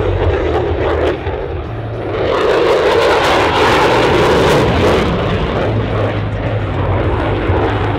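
F-16 fighter jet engine roar, swelling loud about two seconds in as a jet passes, staying at its peak for about three seconds, then easing off.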